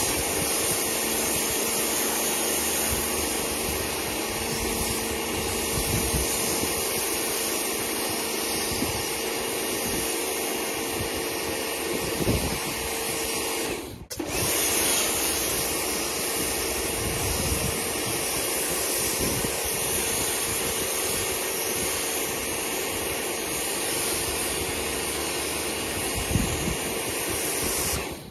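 Pressure washer running steadily: a constant hiss of spray over a steady motor hum, with a brief break about halfway through.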